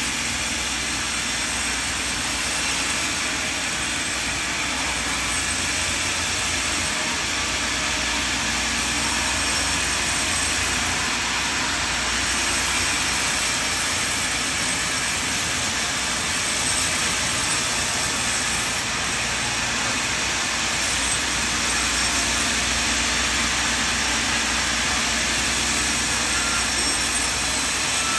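Large vertical band sawmill running and ripping lengthwise through a log: a steady, loud mechanical noise of the blade cutting wood over a low motor hum.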